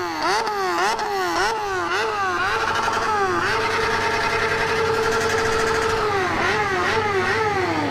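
Straight-piped Yamaha XJ6 inline-four, with no muffler, revved hard. It runs in rapid repeated throttle blips, about two to three a second, then holds at one high rpm for a few seconds in the middle. The blips then resume, and the revs drop away near the end.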